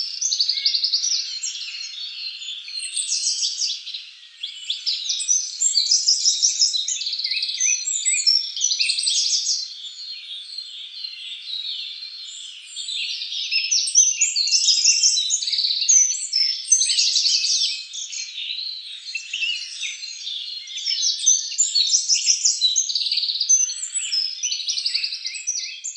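A dense chorus of small birds chirping and trilling, with many quick, high, overlapping calls that swell and fade in waves.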